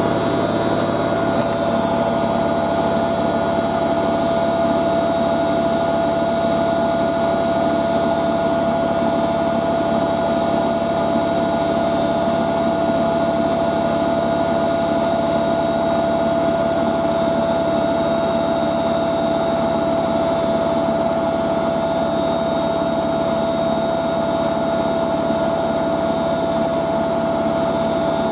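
Hoover A3060 Electronic 1100 front-loading washing machine spinning steadily at speed in its final spin, a constant machine noise with a steady high whine and a slight vibration.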